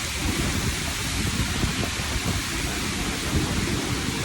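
Heavy rain pouring down, a steady hiss with a dense low rumble throughout.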